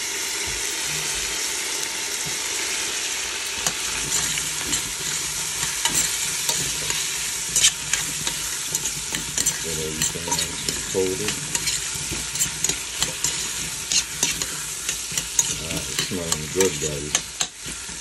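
Cut potatoes sizzling as they fry in hot oil and curry paste in a stainless steel pot. From about three seconds in, a utensil scrapes and knocks against the pot as they are stirred, with a few brief squeaks, and the stirring stops just before the end.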